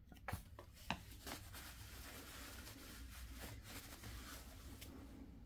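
Faint handling noises from a plastic squeeze bottle of oil being worked over an air compressor's oil fill: a few light clicks and taps in the first second and a half, then soft rubbing and rustling.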